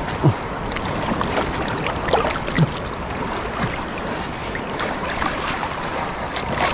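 Sea water washing and sloshing over shore rocks close to the microphone, a steady rushing noise dotted with small splashes and clicks, with some wind on the microphone.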